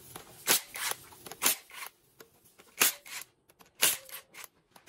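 A red mallet striking the Mitsubishi T120SS engine's bare cylinder head: a series of sharp knocks, often in quick pairs, about two a second.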